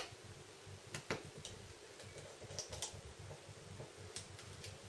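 Light clicks and taps of a precision screwdriver and small screws against the plastic frame of a Samsung Galaxy S3 as the screws are fitted. The sharpest click comes right at the start, another about a second in, and a few fainter ticks follow.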